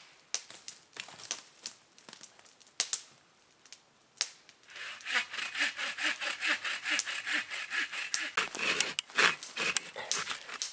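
Footsteps and rustling in dry fallen leaves, then from about halfway in a hand saw cutting through an old tree stump in quick, even back-and-forth strokes.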